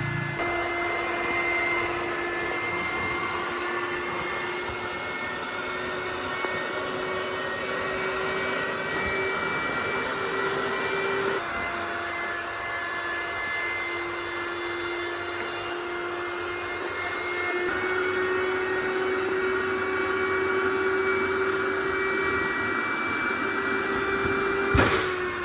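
Electric air pump running steadily as it inflates an inflatable pool, a constant droning whine with airy hiss. A brief knock sounds near the end.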